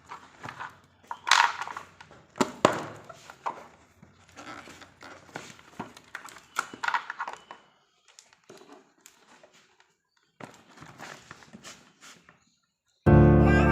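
Packaging and a hair oil bottle being handled: irregular knocks, clicks and crinkling rustles, with two sharper knocks in the first few seconds. Music starts abruptly near the end.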